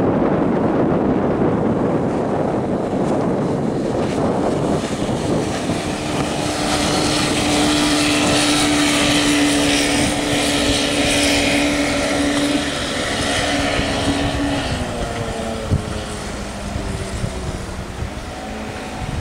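Outboard motor pushing a Glass Magic fibreglass runabout at full speed: a steady engine whine that is strongest for several seconds in the middle, as the boat runs close, over the hiss of spray off the hull. The engine tone eases a little near the end.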